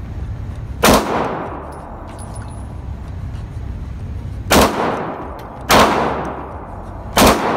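9mm Glock 19 pistol fired four times at an indoor range, each shot sharp and followed by a short echo off the range walls: one about a second in, then three more near the end, the last two a second and a half apart.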